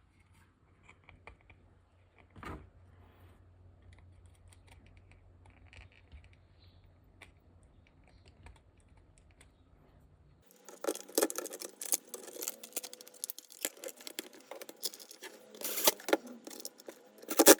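Microwave oven parts being handled by hand: faint scattered clicks with a single thump after a couple of seconds, then a dense run of sharp plastic and metal clicks and rattles starting about two-thirds of the way through.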